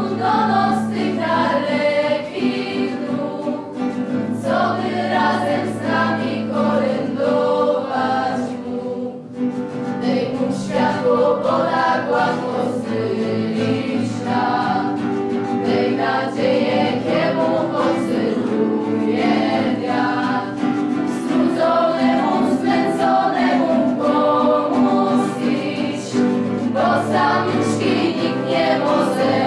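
A group of people singing a Polish Christmas carol (kolęda) together, over sustained low notes.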